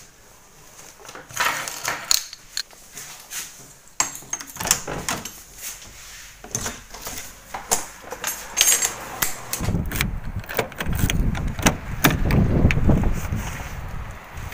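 Scattered clicks, knocks and rustling from handling and moving about. From about ten seconds in, a louder low rumble with frequent knocks joins them.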